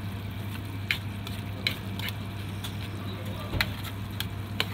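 Beef-and-potato nikujaga simmering in a frying pan: sizzling, with irregular sharp pops and ticks about every half second, over a steady low hum.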